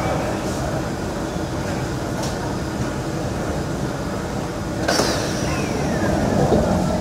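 Steady hum of a stationary Kawasaki Heavy Industries C151 metro train's interior, its air conditioning running with the doors open at the platform, with a sharp clack about five seconds in.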